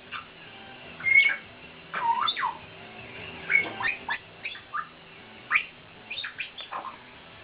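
Congo African grey parrots calling: a string of short squawks, whistles and quick sweeping chirps, some loud and some soft, one after another.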